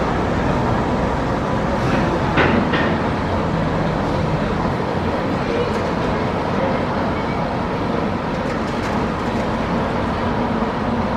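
Steady engine and road noise of a moving vehicle, with a couple of short clicks or knocks about two seconds in.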